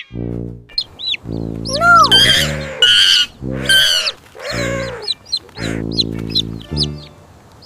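Background music in short repeated phrases, with chicken clucks and squawks over it.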